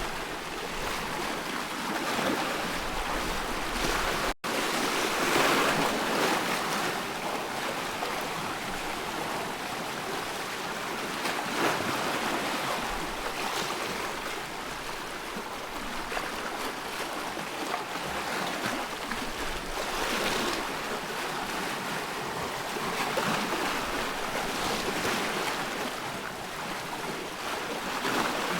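Loch water in waves washing in and out, an even rush of water noise that swells every few seconds, with a brief dropout about four seconds in.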